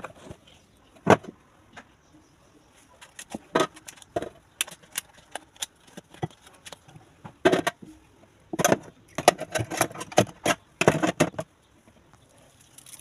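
Small desk items being handled and set down on cardboard boxes: irregular knocks, taps and light scrapes, with a busy run of quick knocks in the second half.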